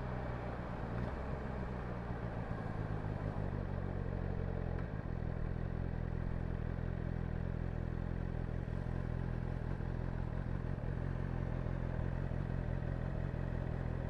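A 2022 BMW 1000RR's inline-four engine idling steadily. Its note settles a little in the first few seconds, then holds even.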